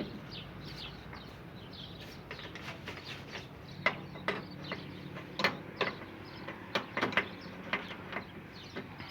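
Irregular sharp metal clicks and clinks of a wrench tightening a copper pipe's flare nut onto a split air conditioner's valve, starting about two seconds in.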